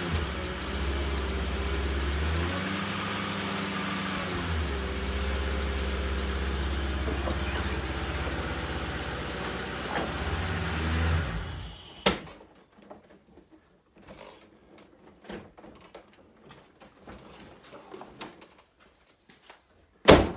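Ford 4.6-litre V8 running at low speed as the car is driven up onto ramps, its note shifting a few times, then switched off about twelve seconds in. A sharp knock follows, then faint clicks and a loud thump near the end.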